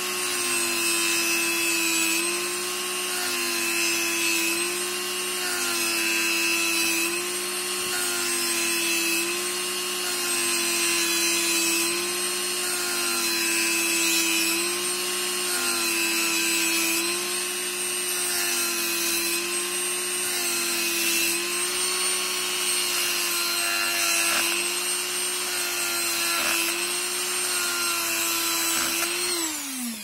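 Dremel rotary tool with an abrasive grinding stone running at speed and grinding a thin spring-steel lock-pick blank held in a vise. Its steady whine dips slightly in pitch about every second and a half, and near the end the tool is switched off and winds down.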